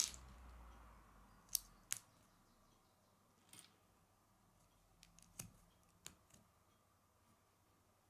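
Plastic Lego bricks clicking as they are handled and pressed together onto a small model, a series of sharp snaps: one at the start, two close together about 1.5 to 2 seconds in, then softer ones until about six seconds in.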